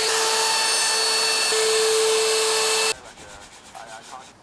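Makita compact router running at speed with a steady whine, chamfering the edge of a plywood panel; it cuts off abruptly about three seconds in. After it comes the faint scraping of sandpaper rubbed by hand over the wood.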